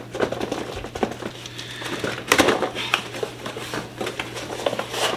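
Packaging rustling and crinkling as a box is opened, with irregular sharp crackles and clicks.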